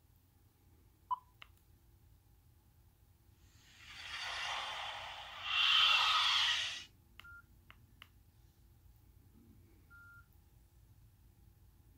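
Nokia 6085 mobile phone keypad: short key beeps and button clicks, with a rushing hiss lasting about three seconds in the middle that grows louder and then cuts off suddenly.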